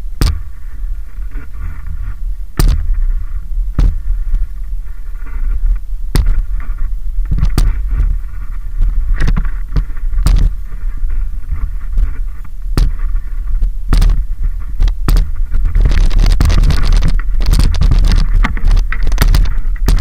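Downhill mountain bike rolling slowly, heard from a camera mounted on the rider: a heavy low rumble of wind on the microphone, with scattered sharp knocks and clicks from the bike's chain and frame. From about sixteen seconds in, the tyres on loose dirt add a dense, steady gravelly rattle that grows louder.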